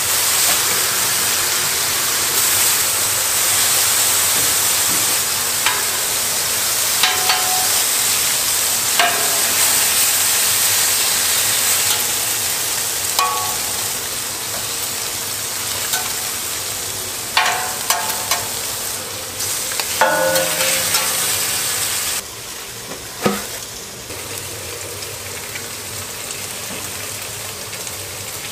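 Burger patties and bacon sizzling on a flat-top griddle: a steady frying hiss, broken by a few short clicks and scrapes of a spatula. The sizzle turns quieter about three-quarters of the way through.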